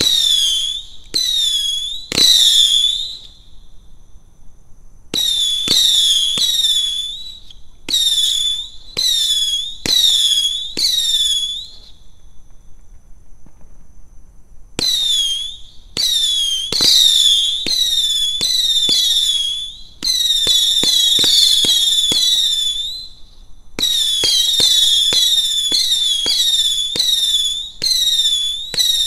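A 200-gram fireworks cake firing whistling shots like Saturn missiles: each shot is a sharp pop followed by a shrill whistle that falls in pitch and levels off. The shots come in rapid volleys of several at a time, with pauses of a few seconds between volleys.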